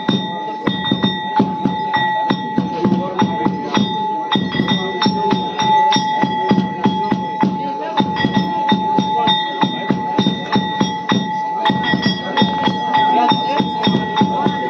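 Drums beating a fast steady rhythm, about four strokes a second, with a held high ringing tone over it, accompanying a devotional dance.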